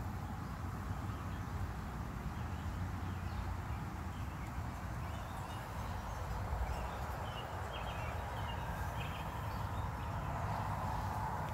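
Steady outdoor background noise, mostly a low rumble, with a few faint short high chirps in the second half.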